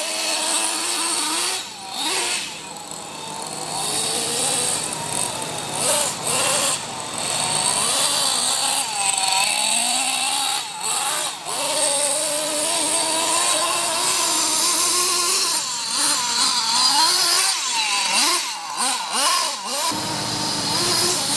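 HPI Savage X 4.6's small two-stroke nitro engine revving up and down over and over as the 1/8 monster truck drives, its pitch rising and falling with the throttle and dipping briefly several times.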